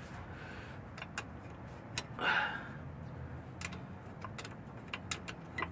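Scattered light metallic clicks and clinks of a hand spanner on bolts and linkage around a van's gearbox, irregularly spaced, with a brief scrape just after two seconds in.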